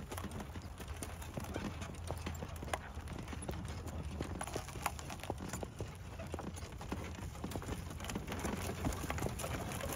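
Horse hooves clip-clopping in uneven steps.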